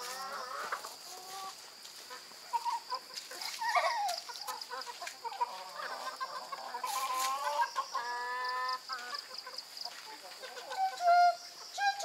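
Several chickens clucking and calling, a run of short calls that rise and fall in pitch, with one longer held call about eight seconds in.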